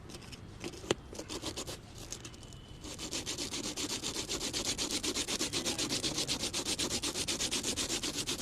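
Abrasive paper rubbed back and forth over the contact points of a car brake-light switch, at first in a few scattered strokes, then from about three seconds in in fast, even scraping strokes. It is scouring burnt spots off the contacts, the fault that kept the brake light from lighting.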